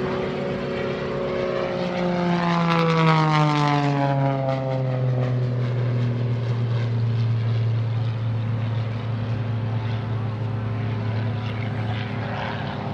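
Extra 300 aerobatic monoplane's six-cylinder Lycoming engine and propeller passing by in a flypast: the pitch drops sharply as it goes past, loudest about three seconds in, then it drones steadily as it flies away.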